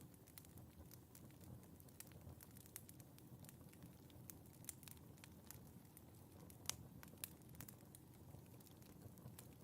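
Wood fire burning in a fireplace, crackling quietly with scattered sharp pops over a low steady rumble of flame. One pop about two-thirds of the way through stands out louder than the rest.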